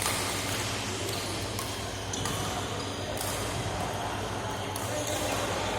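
Sharp, light hits every second or so, as in a rally on an indoor court, over a steady low hum of a large hall.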